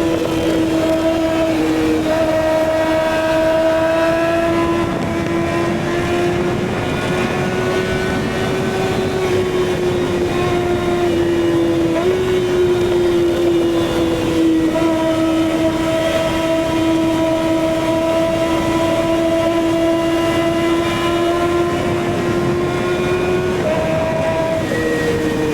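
Kawasaki ZX-6R inline-four engine running at steady high revs under way, its pitch holding nearly level with small shifts, including a brief step about halfway through.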